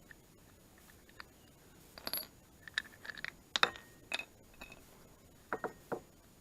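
Small metal parts clinking and tapping against a hard surface: a string of sharp clicks over about four seconds, some with a short metallic ring.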